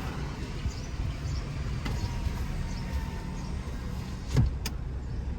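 Steady low road and engine rumble heard inside a moving car, with a single thump about four seconds in.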